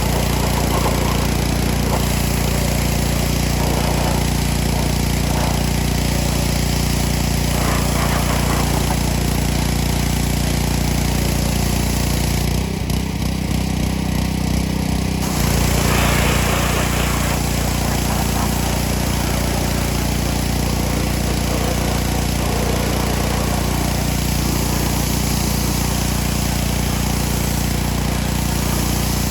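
Small gas engine of a pressure washer running steadily while the water jet hisses against the surface being cleaned. About halfway through the spray stops for a couple of seconds and the engine note changes, then the jet starts hissing again.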